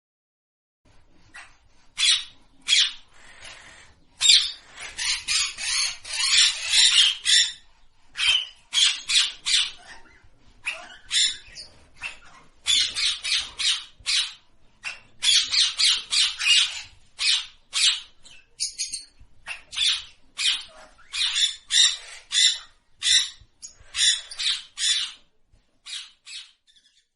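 Parrot calling: many short, high squawks in quick runs with brief pauses, starting about a second in.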